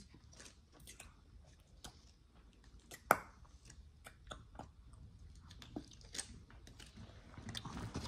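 Faint, irregular small scrapes and clicks of a knife spreading peanut butter over a pine cone's scales, with one sharp click about three seconds in.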